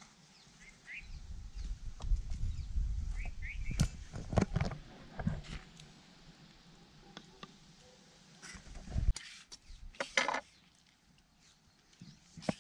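Scattered light knocks and taps of hands handling a wooden spoon, a wooden bowl and spices on a banana leaf, over a low rumble on the microphone in the first half and again briefly later. A few faint bird chirps come through early on.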